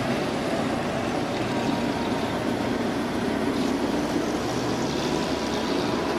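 Engines of WWII-era US Army trucks running as the convoy drives along, a steady engine noise mixed with road noise.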